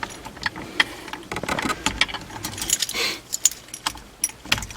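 Car keys jangling, with scattered light clicks and rattles as they are handled.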